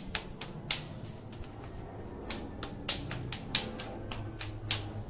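Footsteps climbing stairs: a string of sharp steps, about three a second.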